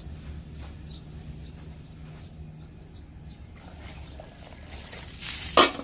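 Birds chirping faintly in short scattered calls over a steady low hum; a little past five seconds in, a brief loud rush of noise.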